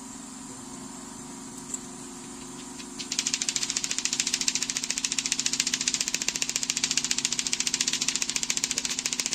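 A machine runs with a loud, fast, even rattle that starts abruptly about three seconds in and cuts off suddenly near the end, over a steady low hum.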